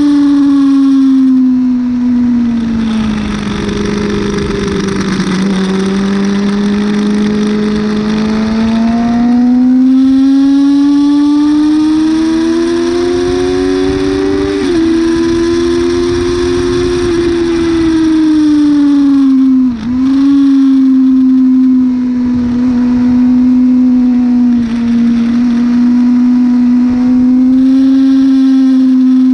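Yamaha R6 600 cc inline-four sport bike engine, heard onboard at speed in second gear with steady wind noise. Its pitch falls over the first few seconds, rises steadily for about ten seconds under throttle, dips sharply once about two-thirds through, then holds steady.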